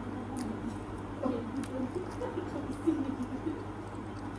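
Close-up chewing of a steamed chicken momo: soft, wet, irregular mouth sounds with a few faint light clicks, over a steady low hum.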